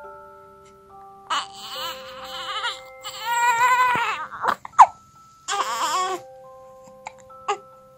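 A newborn baby crying in three short bursts over background music of chiming mallet notes, with a short, sharp sound just before the middle that is the loudest moment.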